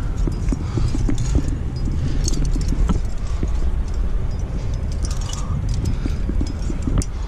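Rumbling wind buffeting the climber's camera microphone, with many short metallic clinks and scrapes of climbing gear and of hands and shoes moving on granite.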